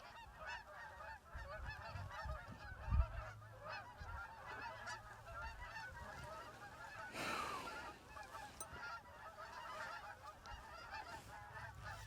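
A large flock of Canada geese honking together as the flock lifts off, a dense chorus of many overlapping calls. A low thump comes about three seconds in, and a brief rush of noise about seven seconds in.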